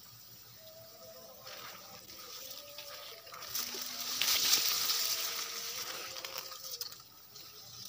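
Tall king grass leaves rustling and brushing, swelling to a peak in the middle and then fading away.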